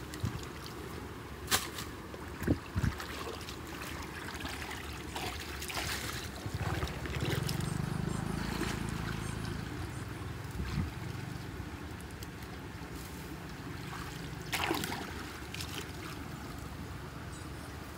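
Muddy water flowing and swirling at a rusted steel culvert gate as debris is cleared from it, swelling for a few seconds in the middle. A few short sharp knocks sound over the water, twice near the start and once near the end.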